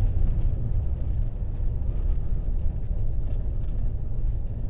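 Dodge RAM 1500's 5.7-litre HEMI V8 and its tyres making a steady low rumble, heard from inside the cabin while driving.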